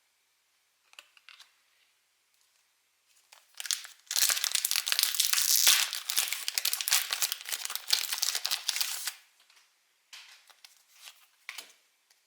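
The foil wrapper of a Pokémon trading-card booster pack being torn open and crinkled: a dense crackling that lasts about five seconds, with a few light handling clicks before and after it.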